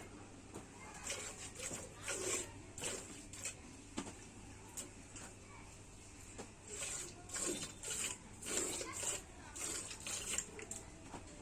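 Milk squirting into a pail as a cow is hand-milked: short hissing squirts, about two a second, in an uneven rhythm that grows stronger in the second half.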